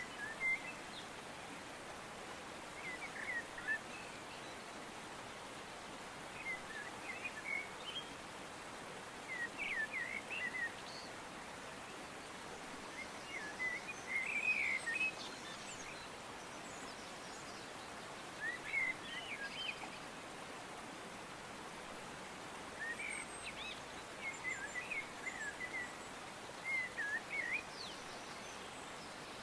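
A small songbird singing short, quick warbling phrases, repeated every three to four seconds, over a steady faint background hiss of outdoor noise.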